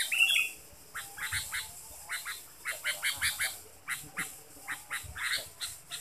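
Sooty-headed bulbul calls: a run of short, harsh notes, several a second, in broken clusters.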